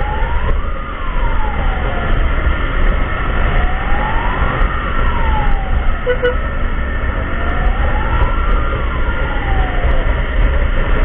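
Ambulance siren on a slow wail, rising and falling in pitch about every four seconds, over a steady low road rumble.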